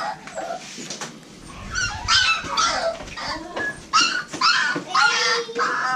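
American Bully puppy whimpering and yelping in a series of short, high-pitched cries, louder from about two seconds in.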